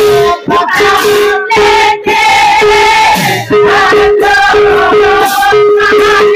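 Group of women singing a devotional song together, with hand cymbals clashing in time and a steady held note underneath.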